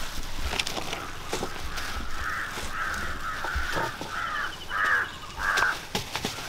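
A crow cawing repeatedly, about six harsh caws in a row, with a few light taps in the background.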